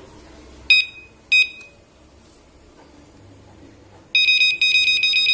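WP6 alarm base unit's electronic buzzer beeping: two short high beeps about half a second apart, then about three seconds later a run of three beeps in quick succession.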